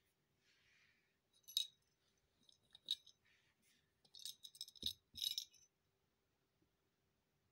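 Plastic rattle-ball toy jingling in about four short bursts as a rabbit nudges it with its nose, with two dull knocks about five seconds in.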